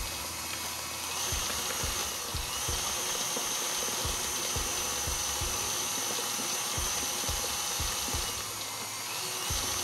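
KitchenAid Artisan tilt-head stand mixer running, its beater working eggs into a thick cream cheese batter in the metal bowl. A thin high motor whine sets in about a second in and drops out near the end, over a steady hum with scattered soft low knocks.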